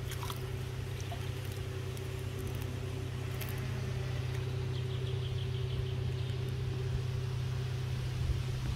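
Steady muffled low rumble of water around a camera held underwater in the shallows while a pike is released from a landing net, with a few faint clicks and ticks.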